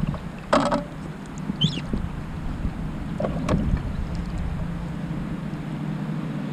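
Wind rumbling on the microphone, with a couple of sharp knocks from handling the fish and gear in a plastic fishing kayak, and a short high chirp about two seconds in.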